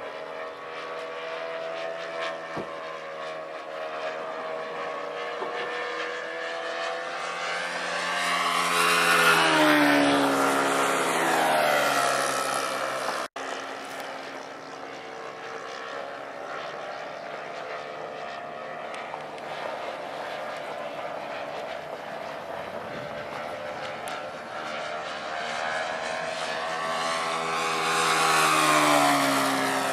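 Radio-controlled model airplane's motor and propeller buzzing steadily as it flies around. Twice, about ten seconds in and near the end, the sound swells and its pitch drops as the plane passes close by.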